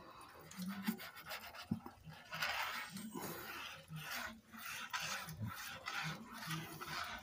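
Nozzle of a squeeze bottle of liquid craft glue dragged across cardstock as lines of glue are drawn on it: a scraping rub in repeated strokes, about two a second, getting louder about two seconds in.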